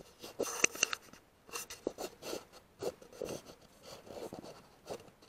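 Handling noise on a scoped rifle: irregular scraping and rustling with several sharp clicks, the loudest pair about half a second in.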